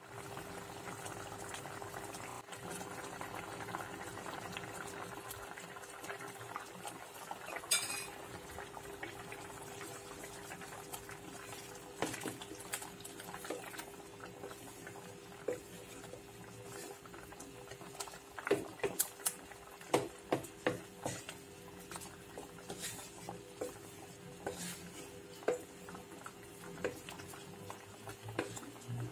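Coconut-cream chicken curry bubbling in a pan while a wooden spatula stirs it, scraping and knocking against the pan. The knocks come thick and irregular in the second half.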